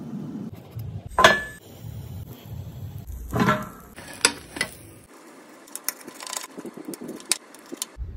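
Kitchenware clanking: two sharp metallic knocks with a brief ring, about one and three and a half seconds in, then a scatter of lighter clicks and taps.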